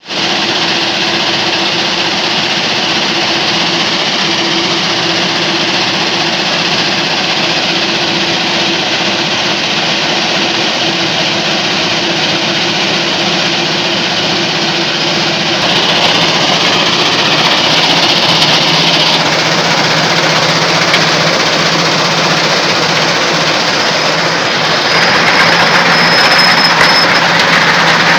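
Stone crusher machinery running: a loud, steady mechanical din with an engine hum. Its tone shifts a little past halfway and again near the end.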